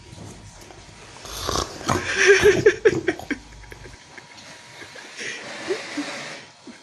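Loud snoring: one big snore with a rattling, pitched snort between about one and three and a half seconds in, then a softer breathy breath near the end.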